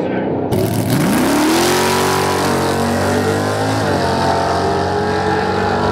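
Two drag-racing cars accelerating hard from a launch, their engines rising steeply in pitch and then holding high revs. There is a brief dip in pitch about four seconds in, like a gear change.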